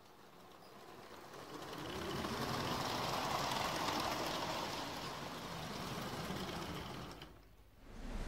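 Motorised building-block toy train's motor whirring and its wheels rattling over plastic track as it passes close by. It grows louder over the first two seconds, holds, then drops away sharply near the end.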